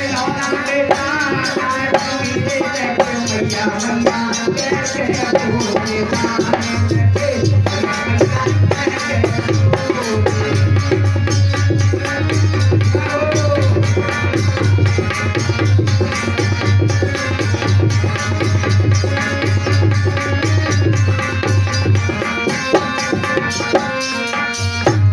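Instrumental passage of Indian devotional folk music: hand-drum playing with rattling percussion under a melody instrument's gliding tune. A deep low drum beat joins about a quarter of the way in and drops out near the end.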